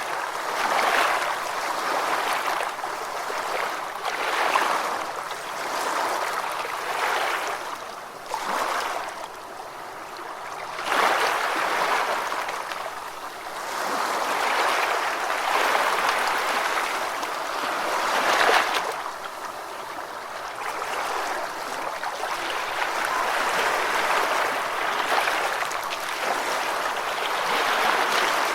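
Gentle ocean waves washing ashore, each one swelling and then fading away every few seconds, as a soft hiss with little deep rumble.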